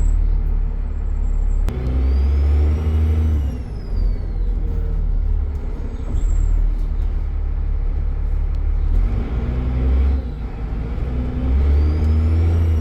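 Dennis Trident bus's diesel engine pulling with a steady low drone, its turbocharger whistling in a high tone that rises and then falls away twice: about two seconds in and again near the end. A single sharp click comes just before the first whistle.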